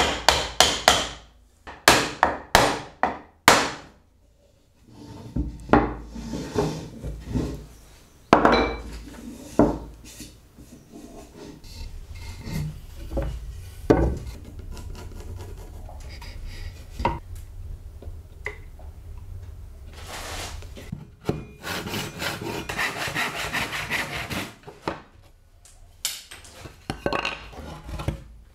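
Oak being worked with hand tools: a quick run of sharp wooden knocks as a dovetailed oak panel is driven together, then boards knocked and slid on the workbench, and a stretch of rapid hand-saw strokes through wood near the end.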